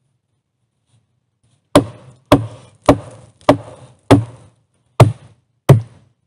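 Seven sharp hammer blows on a peeled log crossbeam of a dugout shelter frame, beginning about two seconds in and spaced roughly half a second apart, the last two a little further apart, each with a short ringing tail.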